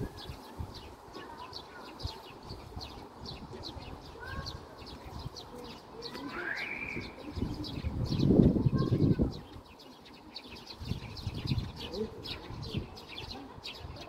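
Small birds chirping over a wall, a rapid run of short high chirps with a few lower calls among them, and faint children's voices at play. A louder low rumble swells and fades a little past the middle.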